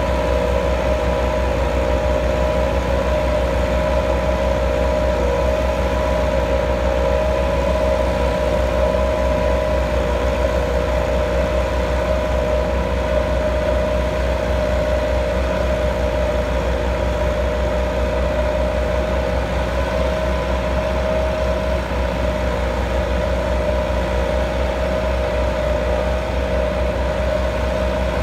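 Four-cylinder diesel engines of Massey Ferguson tractors running steadily under load as they drive 60-blade rotavators through the soil. The engine note is a constant drone with a steady whine in it.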